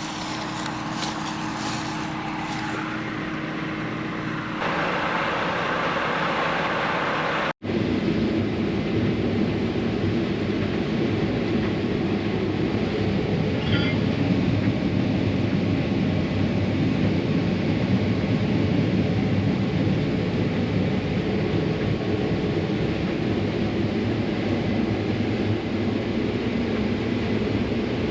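Combine harvester running steadily while harvesting corn. About seven and a half seconds in there is a brief break, and the machine noise carries on louder and lower after it.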